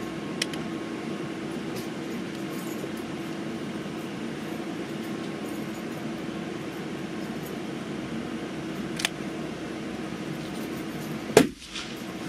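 A single shot from a Pedersoli Black Widow .22 LR rifle about eleven seconds in, sharp and the loudest sound, over a steady low hum. Two faint clicks come earlier.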